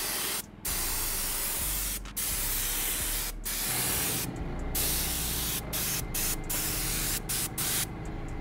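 Compressed air hissing through a Central Pneumatic 4-ounce detail spray gun as it atomizes tire shine onto a tire. It comes in a string of bursts with brief breaks, the breaks more frequent in the second half.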